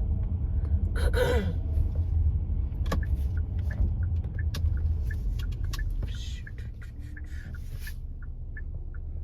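Low, steady rumble of a car moving slowly, heard from inside the cabin, easing off about six seconds in. A brief vocal sound comes about a second in, and a run of light, evenly spaced ticks comes near the end.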